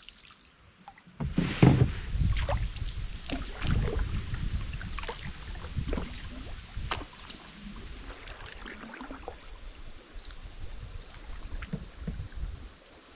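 Canoe being paddled: repeated paddle strokes and water splashing along the hull over a low rumble that starts about a second in and eases off near the end.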